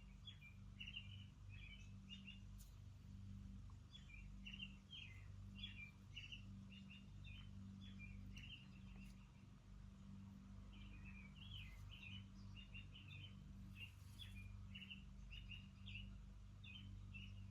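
Faint birdsong from outside: quick short chirps repeating throughout, over a low steady hum.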